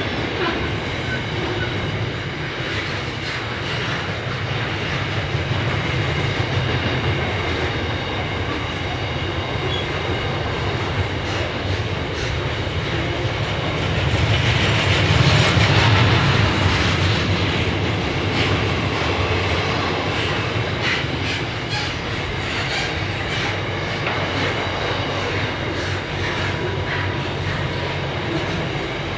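Container wagons of a long intermodal freight train rolling past: a steady rumble of steel wheels on rail with a thin high ringing from the wheels. It swells louder about halfway through, and there are sharper clicks of wheels over rail joints near the end.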